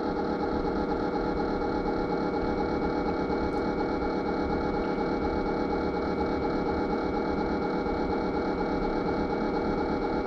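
Steady, unchanging machine hum with a faint high whine over it, like a small motor or fan running.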